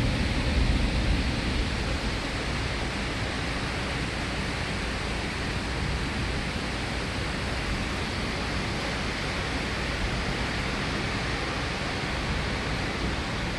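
Steady rushing of strong thunderstorm wind through trees and foliage, with the low rumble of thunder dying away in the first couple of seconds.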